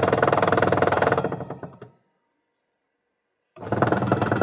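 Washing machine running with a fast, rattling 'khad-khad' clatter from its loose gearbox pulley as the motor belt turns it. The clatter cuts off abruptly about two seconds in and starts again about a second and a half later.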